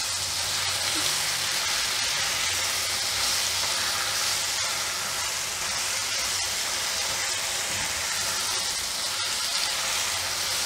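Sliced ridge gourd sizzling in hot oil in a nonstick pan while being stirred with a silicone spatula: a steady frying hiss, with a few faint clicks.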